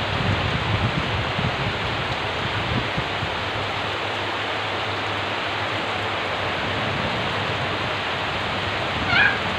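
Heavy rain pouring down steadily, with a brief high chirp about nine seconds in.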